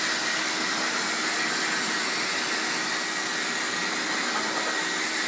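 Hose-type dog dryer blowing air over a wet coat: a steady rushing whoosh of air with a steady whine from the motor underneath.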